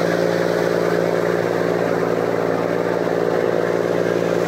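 River ferry's engine running with a steady drone, with water rushing along the hull.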